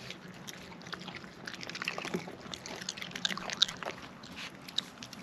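Raccoons chewing food: a run of irregular small crunching clicks.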